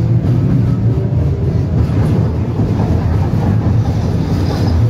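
Inside a 71-605 (KTM-5M3) tram in motion: a steady low rumble of the car running along the rails.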